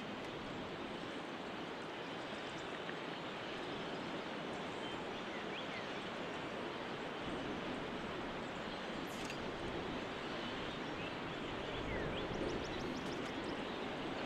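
Freight train rolling past, a steady noise of wheels on rail that grows slightly louder near the end.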